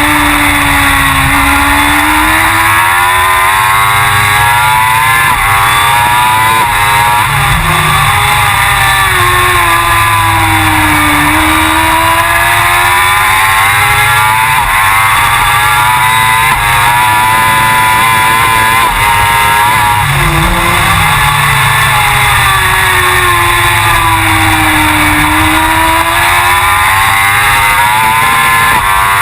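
Suzuki GSX-R1000 superbike's inline-four engine at racing speed on track, its pitch falling and climbing again several times as the bike slows for corners and accelerates out of them.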